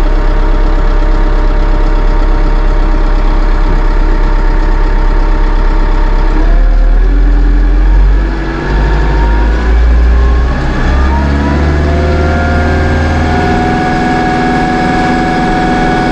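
Massey Ferguson 2850M compact tractor's diesel engine heard from inside the cab, idling steadily, then throttled up about six seconds in, rising in pitch over several seconds and holding steady at high engine speed.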